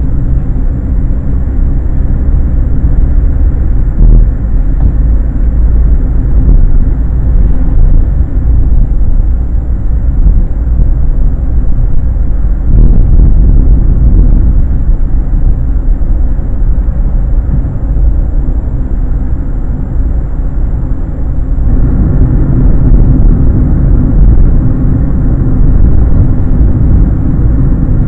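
Fiat Punto driving, heard from inside the cabin: a loud, low, steady drone of engine and road noise. It grows fuller about 13 seconds in and again about 22 seconds in.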